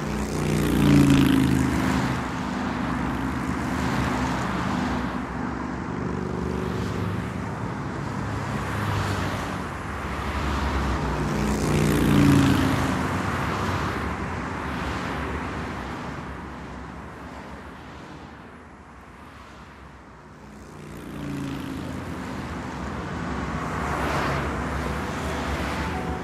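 Road traffic: motor vehicles passing by one after another, each engine hum swelling and then dropping in pitch as it goes past. The loudest passes come about a second in, around the middle, and near the end, with a quieter lull between the last two.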